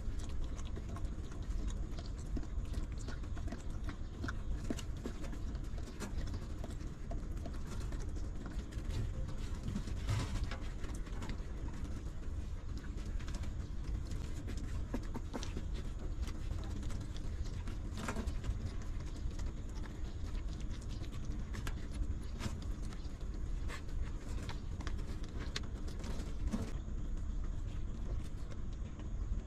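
Mother dog licking and cleaning her newborn puppies while they suckle: scattered soft wet clicks of licking and sucking over a steady low rumble.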